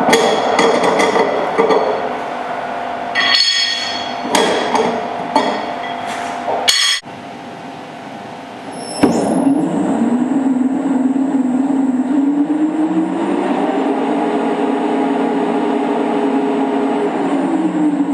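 Metal clinks and knocks as quick-attach diamond grinding tools are snapped on and off a floor grinder's grinding plate. About nine seconds in, a machine starts and runs with a steady hum and a high whine, its pitch rising and later falling back.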